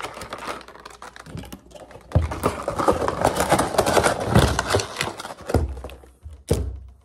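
Cardboard figure box and clear plastic packaging being handled: a dense run of rustles and small clicks from about two seconds in, then a single knock near the end.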